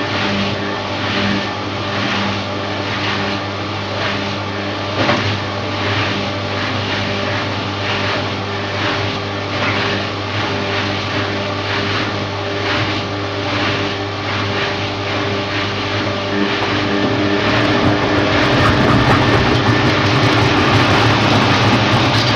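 Washing machine running, its drum turning with a regular beat a little more than once a second over a steady motor hum. It grows louder and more even about three-quarters of the way through.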